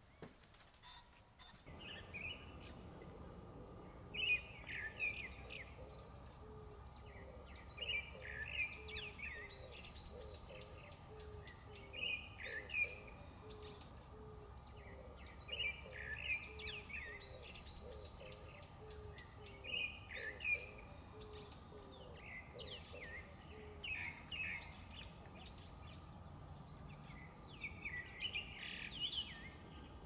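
A songbird singing a short phrase about every four seconds. Beneath it are a low call repeated evenly a few times a second and a faint steady background hum.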